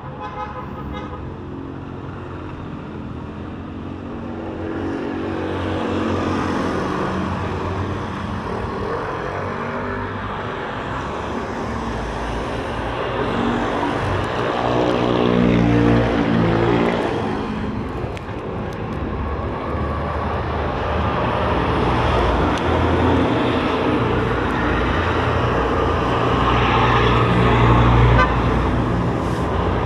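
Road traffic passing close by: a steady rumble of vehicles going past, with an engine rising and falling in pitch as it passes about halfway through. A long flatbed trailer truck goes by near the end, the loudest moment.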